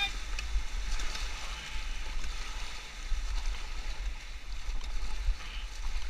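Fast river current rushing and gurgling around an inflatable raft, with a low, unsteady rumble underneath.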